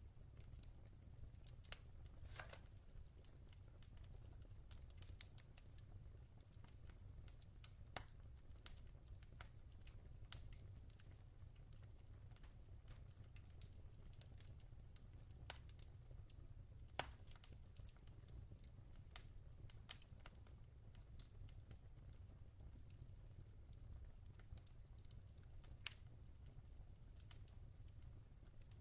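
Log fire crackling quietly: irregular sharp pops and snaps, a few louder ones scattered through, over a faint low rumble.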